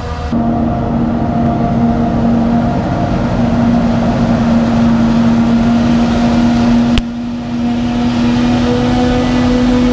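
Heavy farm machinery running steadily at maize harvest: a loud engine drone with a constant hum. The sound changes abruptly about a third of a second in, and again at about seven seconds, where a sharp click is heard.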